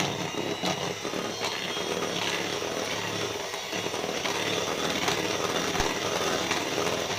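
Electric hand mixer running steadily, its beaters whisking thick semolina cake batter in a bowl.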